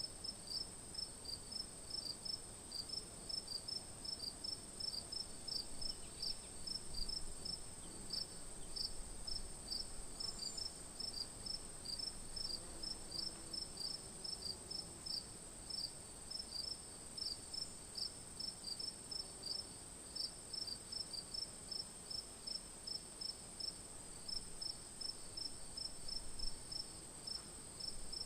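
Crickets singing: a steady high continuous trill with regular chirps over it, about two a second.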